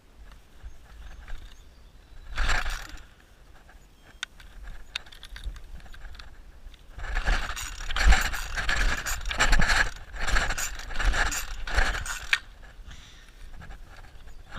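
Gas string trimmer being pull-started: one pull of the recoil starter rope about two seconds in, then a run of repeated pulls over about five seconds, each a short rasping whirr as the engine turns over. The engine does not start.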